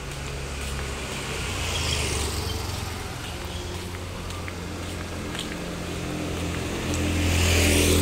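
Street traffic passing close by: a vehicle swells and fades about two seconds in, then a motor scooter passes, louder, near the end, its engine hum rising under the tyre hiss.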